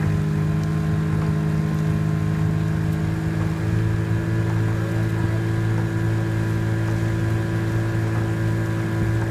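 Outboard motor of a coach's launch running steadily while pacing a rowing eight. Its note changes about three and a half seconds in.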